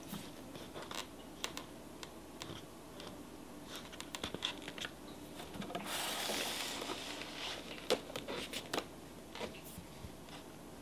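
Gift packaging being handled: scattered light clicks and taps, with a rustle lasting about a second around six seconds in.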